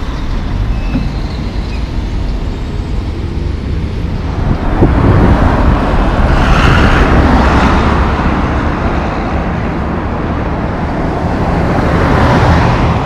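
Road traffic: a low truck diesel rumble, then a passing car's tyre and engine noise swelling about four seconds in and fading, and a loaded logging truck growing louder as it approaches near the end.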